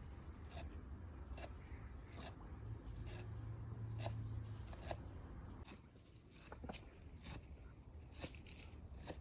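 Crisp crunching strokes from food preparation by hand, roughly one a second, with a brief low hum in the middle.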